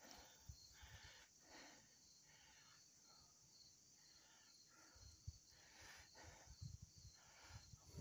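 Near silence: a faint, steady chorus of insects chirping high and regularly, with soft low thumps in the second half.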